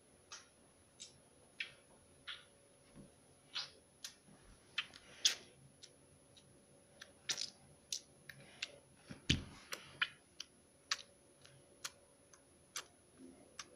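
Faint, irregular light clicks and taps, roughly one a second, with one duller knock about two-thirds of the way through, over a faint steady high-pitched tone.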